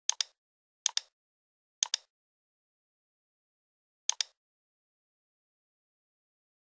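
Computer mouse clicks, four in all, each a quick double tick of button press and release: three about a second apart, then one more about two seconds later.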